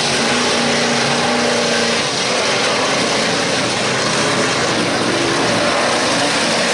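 Several full-size trucks' engines running hard in a dirt-track race, rising and falling in pitch as the drivers accelerate and back off through the turns.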